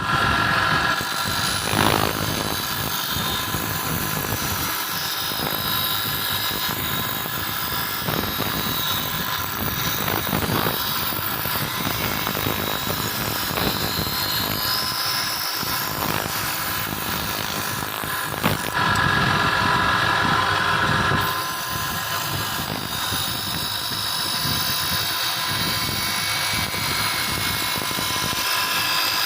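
Power tool grinding steel during knife making: a steady whirring with the load shifting, louder for a couple of seconds about two-thirds of the way through.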